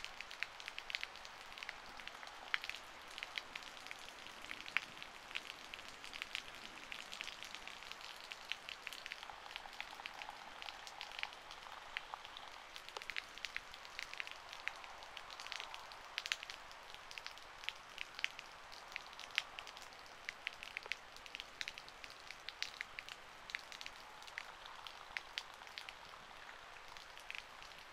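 Rain falling: a steady patter with many irregular sharp ticks of drops striking close to the microphone.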